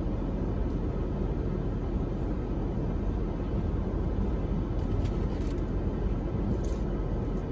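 Steady low traffic rumble heard from inside a car waiting at a red light, with cross traffic passing through the intersection.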